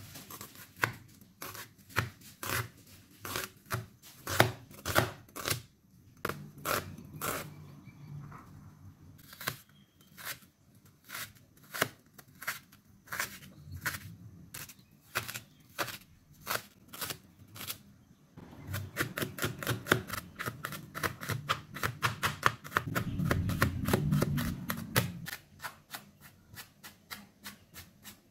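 A cleaver chopping on a plastic cutting board: evenly spaced knocks about twice a second as a red onion is sliced, then, about two-thirds of the way in, fast rapid chopping as the onion and garlic are minced.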